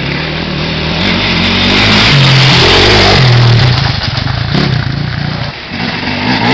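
Off-road enduro motorcycle engine revving loud and close, its pitch rising and falling with the throttle, easing off briefly about four seconds in and again near the end.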